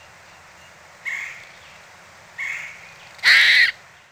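Squirrel calling: three short calls about a second apart, the last the loudest, over a steady background hiss.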